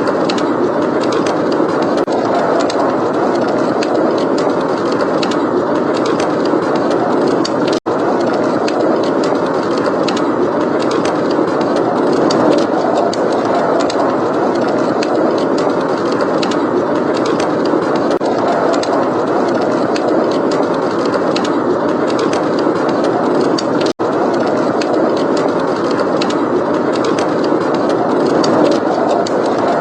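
Blizzard wind roaring steadily, with faint crackles of a fireplace fire over it. The sound drops out for a split second twice.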